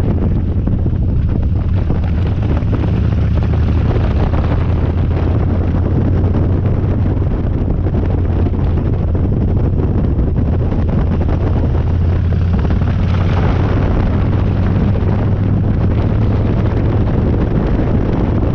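Harley-Davidson Dyna's V-twin engine running steadily under way, a deep even drone, with heavy wind buffeting the microphone.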